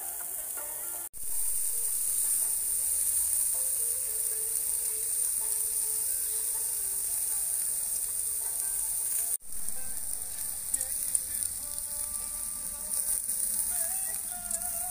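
Ground-meat patties sizzling over charcoal on a grill, their fat melting and dripping onto the coals: a steady hiss that drops out briefly twice.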